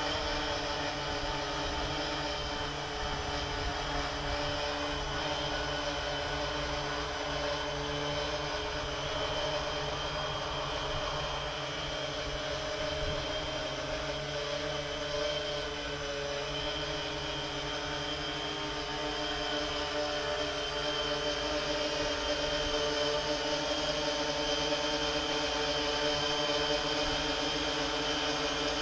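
3DR IRIS quadcopter's electric motors and propellers humming steadily in flight, several steady tones wavering slightly in pitch. It grows a little louder in the last several seconds as it comes nearer.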